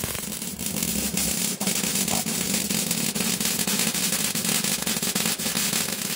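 Electric arc welding on sheet steel: the arc crackles and sizzles steadily, with a low hum underneath, starting suddenly as the arc is struck.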